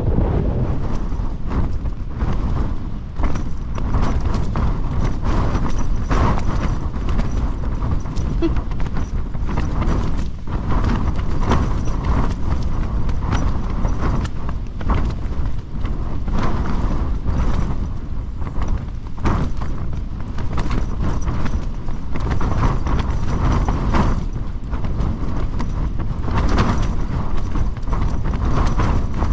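Tent fabric flapping and clattering in strong gusting wind, with a heavy wind rumble on the microphone.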